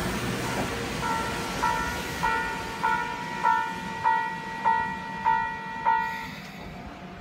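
The fading rumble of a passing electric train, then a railway level-crossing alarm ringing about nine times, a little under two strikes a second, before it stops.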